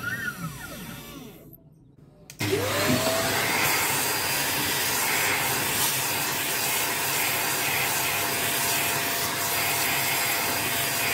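For about the first second and a half, the CNC 3018 Pro's stepper motors whine, rising and falling in pitch as the gantry moves, before fading away. About two seconds in, a small handheld electric cleaner switches on: its motor whines up quickly to a steady high pitch over a loud, even rush of air as it clears acrylic chips off the machine bed.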